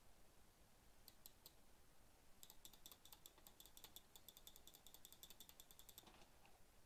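Faint, rapid clicking from computer input devices at the desk. A few clicks come about a second in, then a fast even run of roughly ten clicks a second lasts three or four seconds and stops near the end.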